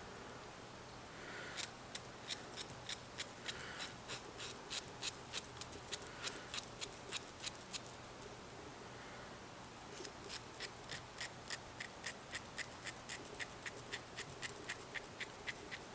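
Needle file stroking a small metal lock pick to smooth off burrs: quick, even strokes at about four a second, in two runs with a short pause near the middle.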